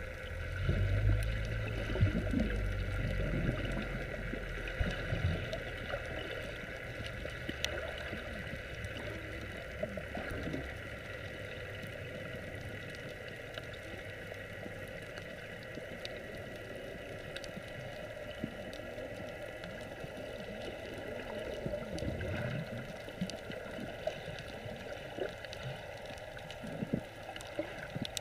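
Underwater sound picked up by the camera: a muffled, steady wash of water with occasional gurgling and faint clicks. A louder low rumble of bubbling comes in the first few seconds and again about 22 seconds in.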